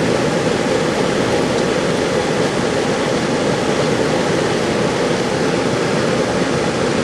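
Bard wall-mounted air conditioner running steadily just after start-up with its newly replaced compressor: a loud, even rush of fan air over the hum of the compressor.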